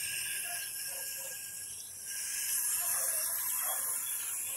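Water spraying from a garden-hose nozzle into a tractor's radiator filler neck: a steady hiss as the radiator is filled, growing a little louder about halfway through.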